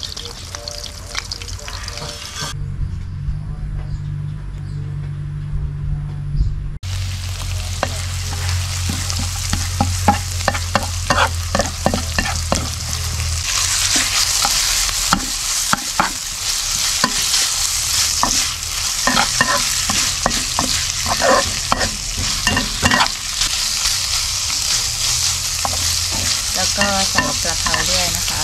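Food frying in a wok: hot oil sizzling while a metal spatula scrapes and taps the pan, stir-frying pork with fingerroot, chillies and kaffir lime leaves. The sizzle drops out for a few seconds early on, leaving a low hum, and grows louder and hissier about halfway through.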